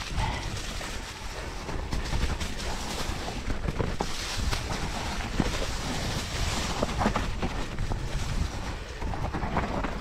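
Mountain bike rolling fast down a trail covered in dry leaves: the tyres crackle through the leaf litter, with scattered knocks from the bike over bumps and wind rushing over the microphone.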